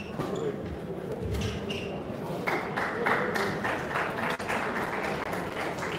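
Applause from a small crowd, many hands clapping, starting about two and a half seconds in, with a dull thump shortly before it.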